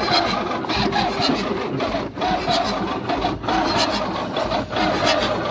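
Starter motor cranking the truck's 6.2-litre Detroit diesel without it catching, the sound dropping briefly every second or so. The starter is struggling: not happy.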